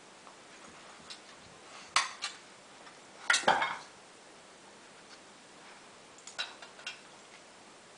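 Metal muffin tin clattering and clinking as a dog noses tennis balls out of its cups to get at treats. There are a couple of knocks about two seconds in, the loudest rattle about three and a half seconds in, and a few lighter clinks near the end.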